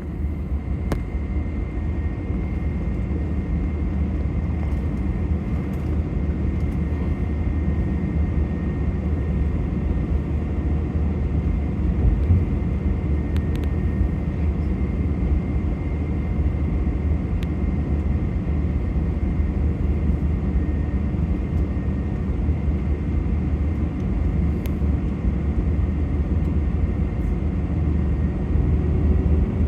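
Steady rumble of a jet airliner heard from inside the cabin, with a faint high steady tone over it and a few faint clicks.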